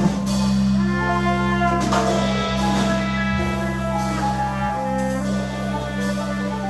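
Jazz quartet of trumpet, piano, double bass and drum set playing live, a passage of long held notes and chords over a steady low tone.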